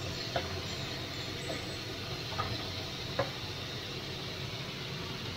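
Diced chicken breast sizzling in a hot nonstick frying pan: a steady hiss, with a few light clicks of tongs against the pan, the sharpest about three seconds in.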